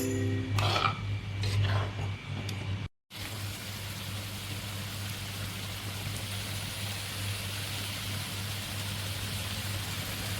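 Steady hissing, bubbling noise of the chili-tomato sauce for telur bali cooking in a pan, over a low hum. The background music fades out at the very start, and the sound cuts briefly to silence just before three seconds in.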